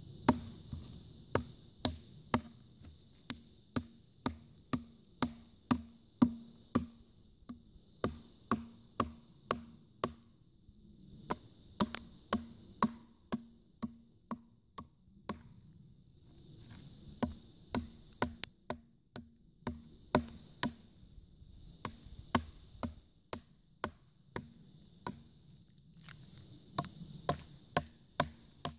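Gerber Bear Grylls Ultimate survival knife chopping into a dead log, the blade striking the wood about twice a second in runs broken by short pauses.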